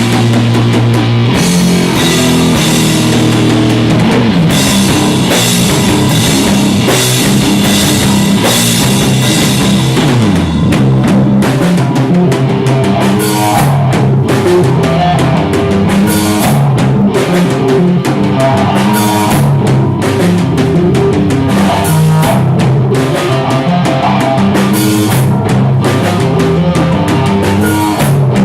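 A live rock band playing an instrumental passage, with a drum kit, electric guitar and bass, loud and steady; the cymbal wash thins about ten seconds in while the drums keep a regular beat.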